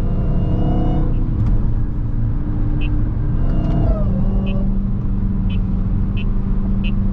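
Dodge Charger Hellcat's supercharged 6.2-litre V8 running steadily in slow traffic, its pitch stepping down about four seconds in. A light, regular ticking, about one and a half a second, comes in near the middle.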